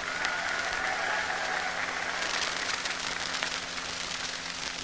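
A large crowd applauding, louder in the first couple of seconds, on an old 1942 recording with a steady hum and surface crackle.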